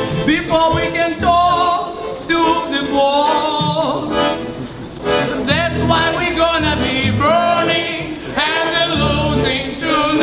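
A voice singing in short phrases with a strong, wide vibrato, over music with low bass notes.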